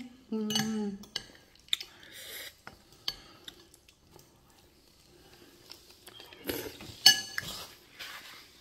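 Metal fork clinking and scraping against a ceramic soup bowl in a few scattered sharp clinks, with a brief hum of voice in the first second. Near the end comes a louder patch of rustling with the loudest clink, as the fork is set down against the bowl.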